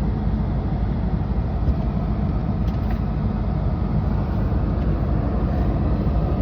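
Truck engine running with a steady low drone, unchanging throughout.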